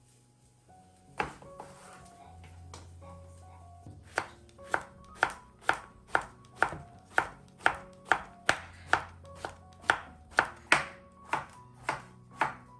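Chef's knife slicing peeled eggplant on a wooden cutting board. A single knock comes about a second in, then from about four seconds a steady run of knife strikes on the board, about two a second.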